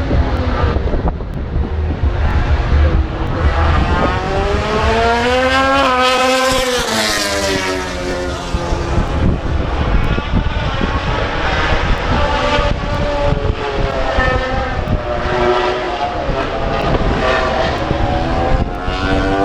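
Racing motorcycles running at high revs as they pass by, the engine pitch rising as each bike comes in and dropping as it goes away. The loudest pass comes about six to seven seconds in, and another builds near the end.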